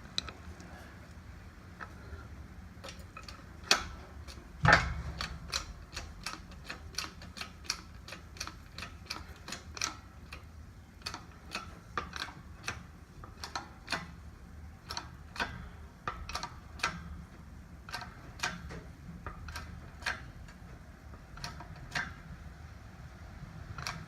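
Sharp metallic clicks from hand tools being worked on a seized wheel bearing, one or two a second at uneven spacing, with two louder knocks about four and five seconds in; the bearing is not moving.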